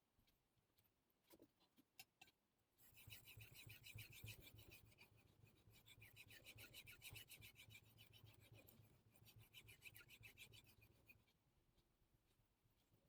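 Damascus steel carving knife stroked back and forth on the 5000-grit side of a Naniwa combination Superstone: a faint, rhythmic scraping of steel on stone. It starts about three seconds in, after a few light clicks, and stops near the end.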